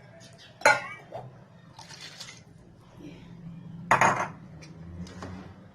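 Metal utensils clanking against a cooking pot while more water is added to a chicken and groundnut gravy: two sharp ringing clanks, about a second in and about four seconds in, with quieter scraping sounds between.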